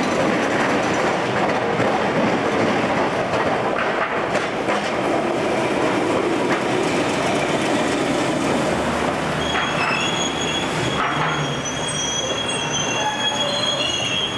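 W class tram passing close by, its wheels rumbling steadily on the rails. In the second half, high-pitched wheel squeal sets in and carries on as thin whistling tones.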